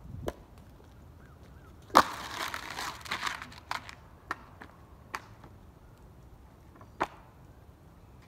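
A snowboard slaps down onto lake ice with a sharp knock about two seconds in, then slides across the ice with a scraping hiss lasting about a second and a half. A few scattered single clicks follow.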